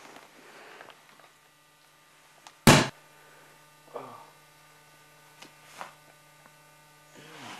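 Steady low electrical hum, broken about three seconds in by one loud, sharp bang, then a few small knocks.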